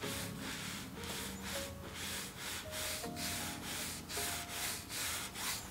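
A wide bristle brush scrubbing thick titanium white acrylic paint across a canvas in quick, repeated back-and-forth strokes, about three or four a second.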